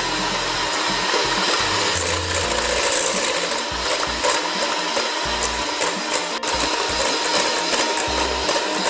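Electric hand mixer running at speed, its beaters whipping cream in a stainless steel bowl: a steady motor whine under a dense metallic rattle.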